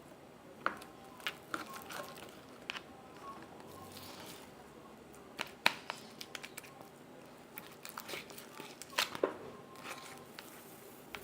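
Homemade glue slime being worked with activator, giving irregular sticky clicks and small pops as it pulls apart.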